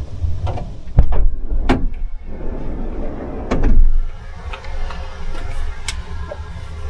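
Strong wind buffeting the van and the microphone in a low, uneven rumble that surges about a second in and again midway, with several sharp knocks and clicks among it.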